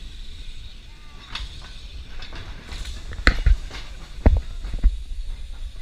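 Riding on the open top deck of a moving vintage tram: wind buffets the microphone, and a few sharp clacks come through from the tram. Faint bird chirps can be heard now and then.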